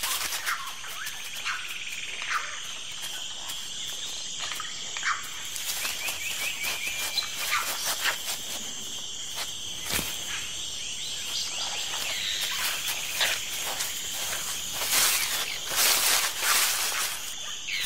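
Amazon rainforest ambience: insects buzzing steadily, with a few short falling animal calls and a quick trill, over dry leaf litter rustling and crackling as an agouti digs, the crackling loudest near the end.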